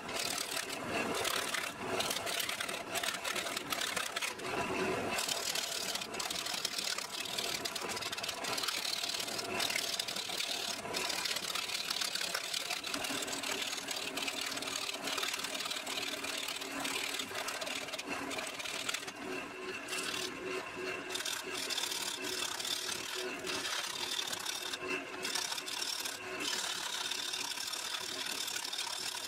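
Wood lathe spinning a wet elm blank while a gouge cuts it, a continuous rough cutting and scraping of green wood with the lathe motor's steady hum underneath. The cut lets up briefly now and then.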